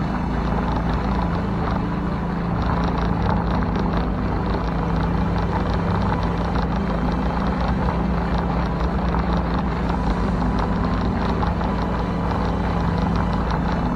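2HP Honda four-stroke outboard motor running steadily under way, pushing a small boat along at a constant throttle.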